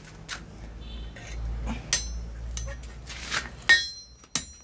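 Blacksmith's hammer striking a red-hot piece of steel on an anvil: a few irregular blows, the loudest near the end with a bright metallic ring.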